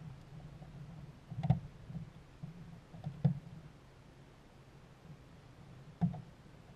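Four short knocks of hard plastic as a catfish is handled onto a plastic fish-measuring board in a kayak, the loudest about a second and a half in, two close together near the middle and one near the end, over a low steady hum.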